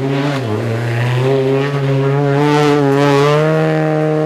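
Citroën DS3 rally car's engine under load out of a corner, its pitch dipping briefly about half a second in, then climbing steadily as the car accelerates away. A short rush of hiss rises over it near the middle.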